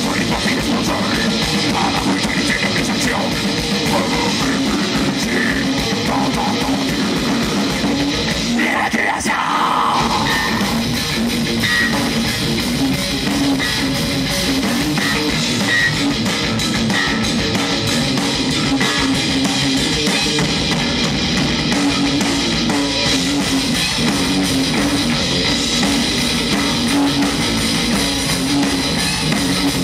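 Heavy metal band playing live: distorted electric guitars over a pounding drum kit in an instrumental stretch. The low end drops out for about a second around nine seconds in.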